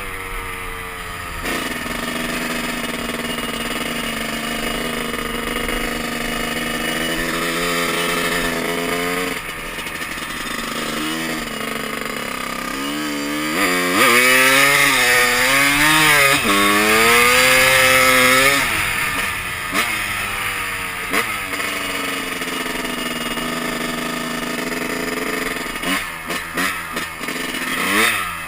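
Honda CR250 two-stroke dirt bike engine running at a steady pitch. There are short throttle blips around ten seconds in, then it revs up and down hard for about five seconds. It settles back to a steady run, with a few quick blips near the end.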